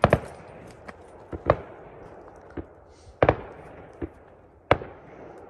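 Fireworks going off over a lake: four loud bangs about a second and a half apart, with fainter pops between. Each bang trails off in a rolling echo.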